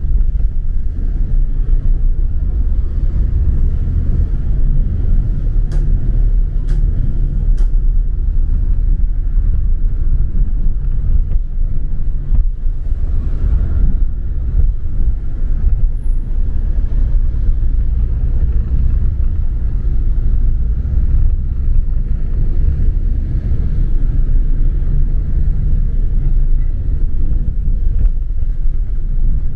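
Steady low rumble of a double-decker bus on the move, its engine and road noise heard from on board. Three faint ticks come about six to eight seconds in.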